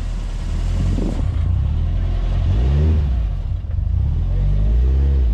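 Subaru flat-four engine revving with a few rising and falling sweeps as the driver gives extra throttle to pull away from a stop, working against a six-puck clutch that grabs very quickly.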